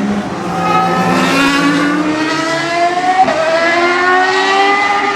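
Ferrari race car engine accelerating hard past the trackside, its pitch climbing, dropping sharply on an upshift about three seconds in, then climbing again.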